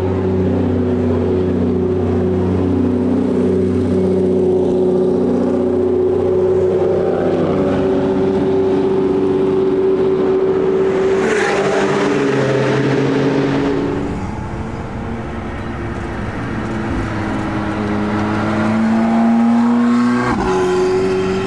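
Porsche 911 GT3 RS (992) naturally aspirated flat-six, fitted with a fully straight-piped Soul exhaust, running at low revs as the car rolls off. There is a short, sharp throttle blip about halfway through. Then the sound drops and an engine note rises steadily, heard from inside a car.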